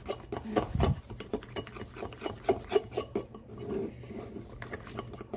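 Metal fork whisking lemon glaze in a ceramic bowl: quick, irregular scraping and clinking of the tines against the bowl's sides and bottom, with a low thump just under a second in.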